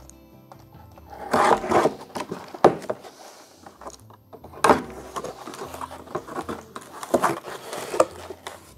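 Cardboard box being opened by hand: a run of scraping and tearing noises with sharp cracks, in several loud bursts as the flaps are worked loose and pulled apart.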